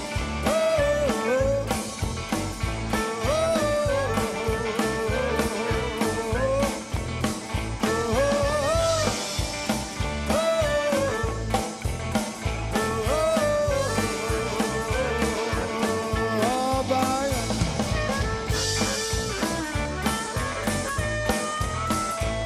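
Chicago-style blues band playing an instrumental passage on drum kit and electric guitars, with a lead line repeating a short bending phrase every couple of seconds. A cymbal crash comes about nine seconds in and again near the end.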